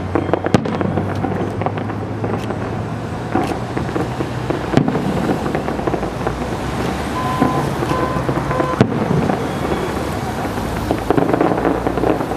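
Fireworks display: aerial shells bursting, with several sharp bangs spread over a steady rumbling background.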